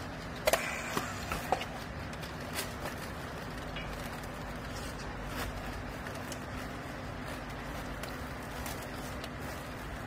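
Steady low machine hum, with a few sharp clicks about half a second to one and a half seconds in as a handheld battery strapping tool is fitted onto the plastic strap around a bale held under the press.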